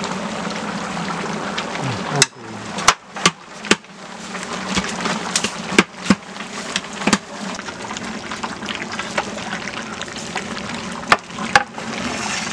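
Beef pieces sizzling and frying in oil in a large aluminium cooking pot over a wood fire. A long ladle knocks and scrapes against the pot as the meat is stirred, giving a string of sharp knocks, while the sizzle dips about two seconds in and then builds again.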